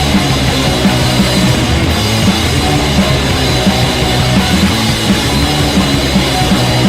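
Rock band playing loud and steady, driven by a drum kit and low bass notes, recorded as a rough rehearsal demo.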